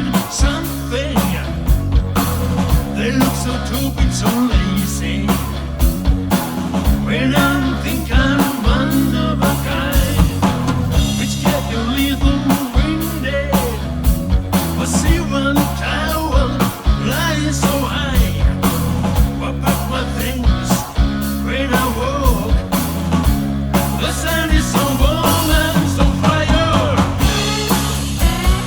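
Rock band playing a song: a steady drum beat over a bass line, with gliding melodic lines above.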